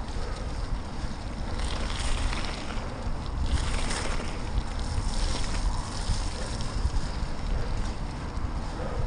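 Wind buffeting the microphone of a GoPro Hero Session 5 on a moving bicycle, a heavy gusty rumble, over the hiss of the tyres rolling on a wet gravel path, which swells about two to five seconds in.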